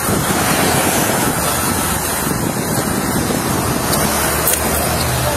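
Steady rushing noise on a police body-worn camera's microphone: wind and rubbing against the mic as the wearer walks.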